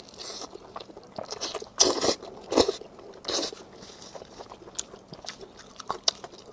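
Close-miked biting and chewing of beef rib meat, wet and crunchy, with several louder crunching bites about two, two and a half, and three and a quarter seconds in.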